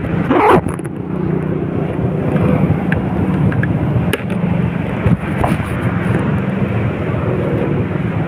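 A vehicle's engine hums steadily under a continuous rush of heavy rain and wet-road noise while driving. About half a second in there is a brief louder whoosh.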